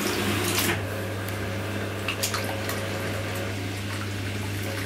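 Washing machine draining its rinse water through the drain hose into a plastic basin: water pouring and splashing, strongest in the first second, over a steady low hum.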